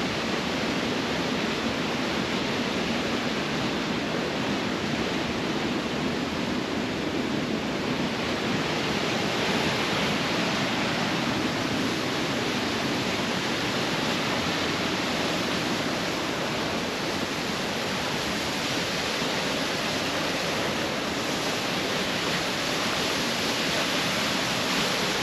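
A large waterfall crashing steadily: a loud, unbroken roar of falling water.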